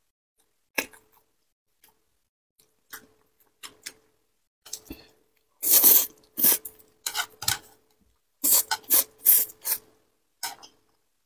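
Close-miked eating sounds of sauced enoki mushrooms being bitten, sucked in and chewed. It starts as a few scattered mouth noises, then comes in two loud clusters in the middle and toward the end, with one last bite near the close.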